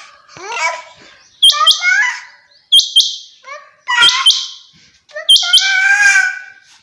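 Common quail calling: loud, sharp call notes in quick pairs, repeated about every second and a quarter, with lower chirping between them.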